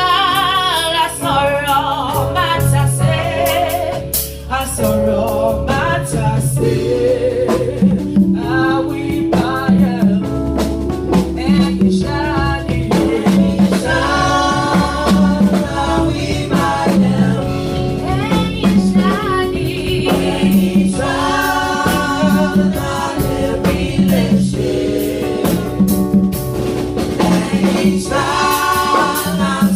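Gospel music: a choir singing with instrumental backing over a steady beat.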